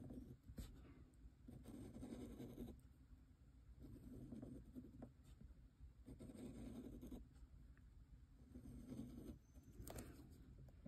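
Brass dip nib scratching faintly across paper, drawing a series of lines, each stroke about a second long, with a sharp light click about half a second in and another near the end.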